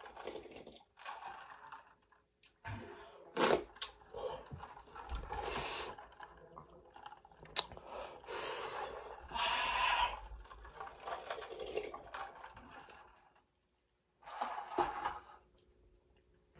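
A man breathing hard through his mouth, with sharp hissing breaths and gasps from a burning mouth after extremely hot chicken tenders, broken by a few sharp clicks.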